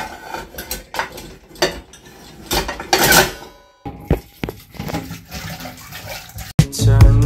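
Metal cooking pots and dishes clattering in a stainless-steel sink and dish rack, with the tap running as a pot is rinsed. Music with a beat comes in near the end.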